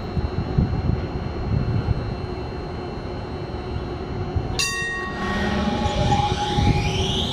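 Alstom Citadis tram standing with a steady hum. About four and a half seconds in, a short ringing chime sounds. Then the tram's traction motors start up with a whine of several tones rising in pitch as it pulls away.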